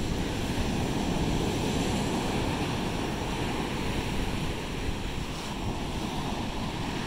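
Ocean surf breaking and washing up a coarse-sand beach, a steady rushing, with wind rumbling on the microphone.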